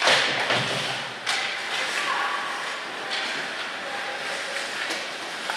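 Ice hockey play along the boards: a loud thud right at the start and another sharp knock about a second in, with skates scraping the ice in between.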